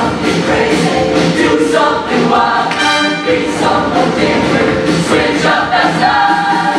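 High-school show choir singing full-voiced in harmony, backed by a live band with brass and a steady beat.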